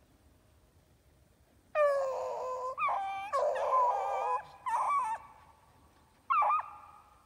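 A series of high, whining calls, about five in a row with short gaps, the longest lasting about a second, the pitch bending up and down.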